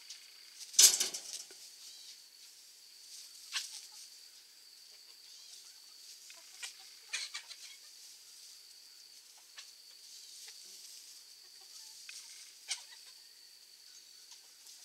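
A flock of chickens scratching and pecking in dry grass, with a few short clucks scattered through; a louder short sound comes about a second in. A steady high-pitched hiss runs underneath.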